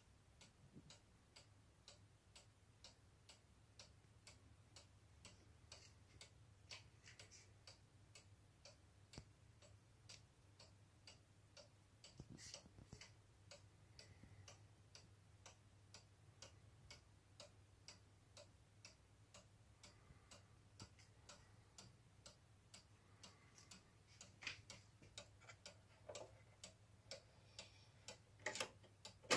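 Faint, steady ticking of a vintage chalet-style cuckoo clock's mechanical pendulum movement, about two ticks a second. A few louder knocks and rubs come near the end.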